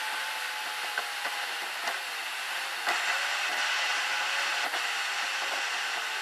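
Road noise inside a car's cabin at expressway speed: a steady rushing of tyres and wind with a faint engine hum, and a few light clicks.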